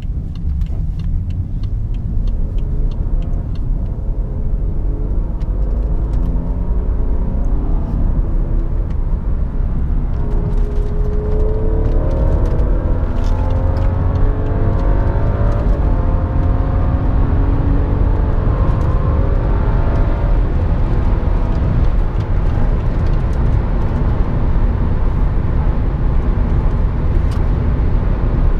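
Inside the cabin of a moving 2012 BMW 535i (F10): a steady low road and tyre rumble, with the turbocharged 3.0-litre straight-six rising in pitch several times in the middle as the car accelerates.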